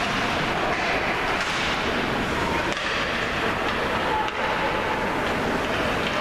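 Indoor ice rink ambience during an ice hockey game: a steady noisy din, with a couple of brief faint calls partway through.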